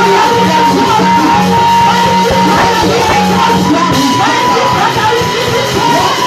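Loud music with singing over instruments, with a long held note running through much of it.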